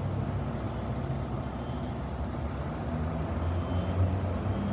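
Heavy vehicle engine idling steadily, a low, even rumble.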